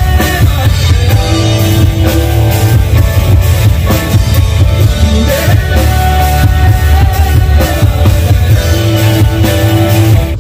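Live band playing loudly: drum kit, electronic keyboard and electric guitar, with a male singer on microphone through the stage sound system.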